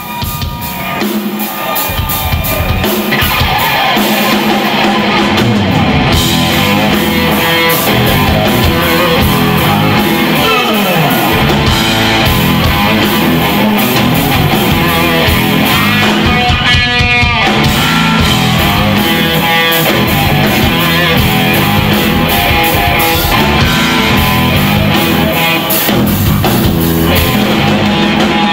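A hard rock band playing live: distorted electric guitar over bass and drum kit. The music swells up over the first few seconds, then stays loud and steady.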